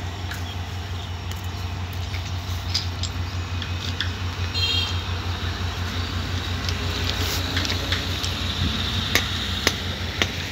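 Diesel locomotive engine running in the distance with a steady, quick low throb. A brief high chirp comes about four and a half seconds in, and two sharp clicks near the end.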